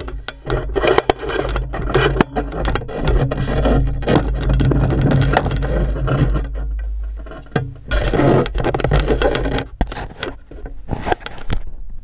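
Handling noise on an action camera: hands and fingers rubbing and knocking on the housing, with many irregular clicks over a low rumble and a short lull a little past the middle.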